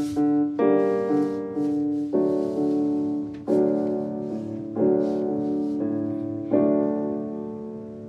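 Background piano music: slow notes and chords struck every second or so, each ringing and fading, dying away near the end.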